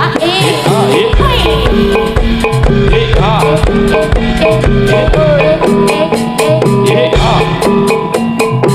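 Jaranan dance accompaniment played loud through a sound system: steady drum beats and ringing tuned percussion under a bending, wavering melody line.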